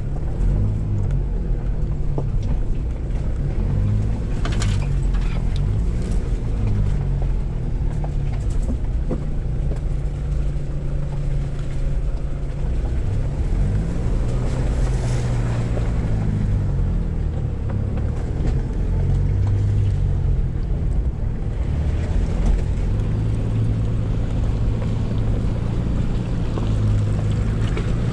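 A 4x4's engine heard from inside the cabin, working at low speed over a stony riverbed, its note rising and falling as the revs change. Water splashes and gravel noise come from under the wheels, with a couple of brief louder splashes.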